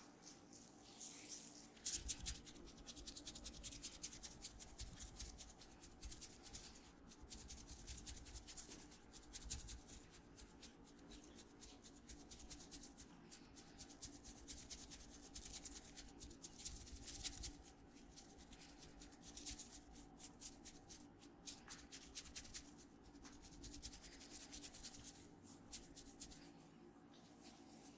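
A barber's hands rubbing and working an oiled head and neck in a massage. It is quiet: a dense, uneven run of quick soft crackles and rubs from skin and oiled hair.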